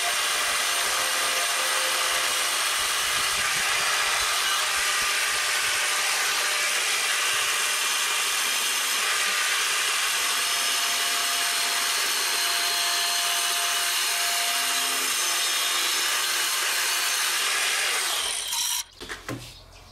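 Angle grinder with a stone-cutting disc running steadily under load as it cuts through a stone slab. It cuts off suddenly about a second and a half before the end.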